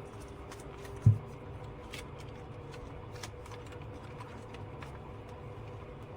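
Light handling sounds at a desk: scattered faint clicks and rustles of paper and small objects over a steady low room hum, with one dull thump about a second in as something bumps or is set down.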